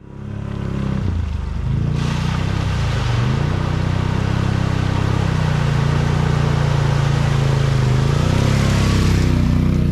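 Can-Am Outlander 850 ATV's V-twin engine running under throttle, its pitch dipping and climbing near the start and again near the end, with a hissing rush over it for most of the stretch.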